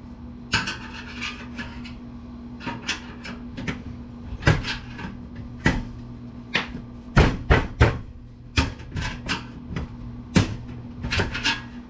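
Irregular knocks and clanks of a Gateway desktop computer case being handled and pulled at while a part is stuck in place, with a steady low hum underneath.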